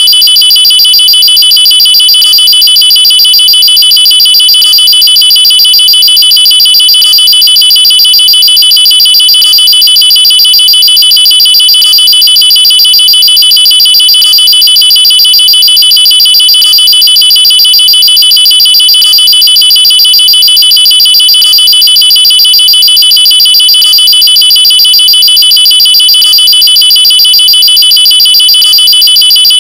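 Electronic alarm sounding a loud, steady high-pitched tone with a rapid pulse, repeating without a break.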